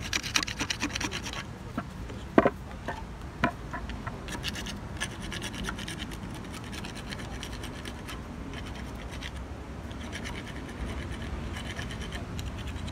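Hand carving tool scraping and cutting a wooden elephant sculpture in many quick short strokes, carving the finishing fur texture, with two sharper clicks about two and a half and three and a half seconds in.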